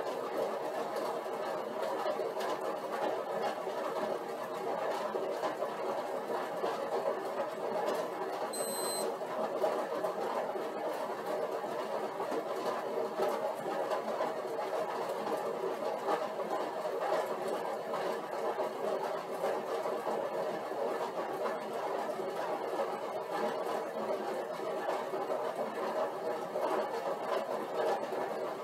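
Upright cycle ergometer whirring steadily as it is pedalled at an even 100-watt warm-up load. A short high beep sounds about nine seconds in.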